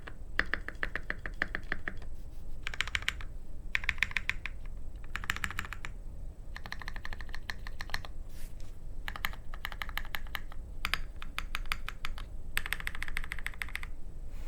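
Mode SixtyFive mechanical keyboard with Tecsee Porcelain Blue switches on a copper plate and DSA keycaps: modifier keys pressed in quick runs of rapid clicks, about eight runs with short pauses between them.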